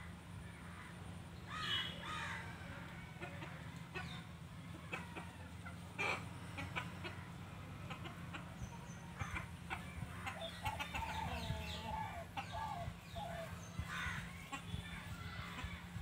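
Chickens clucking in short bunches of calls, busiest in the second half, over a steady low hum.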